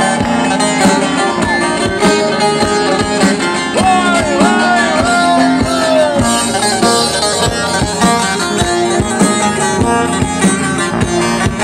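Live Turkish folk dance music without singing: a plucked string melody with sliding notes about four to six seconds in, over a steady drumbeat.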